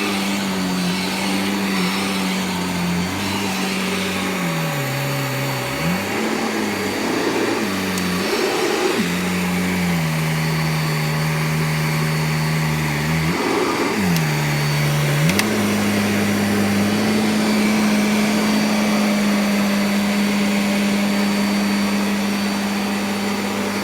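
Vacuum cleaner running continuously, a steady motor hum over a rushing of air. Its pitch dips lower twice, about five seconds in and again about fourteen seconds in, then holds steady.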